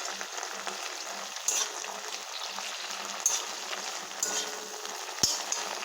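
Thoodhuvalai leaves, garlic and small onions frying in sesame oil in a kadai, a steady sizzle, with a few sharp scrapes as they are stirred against the pan.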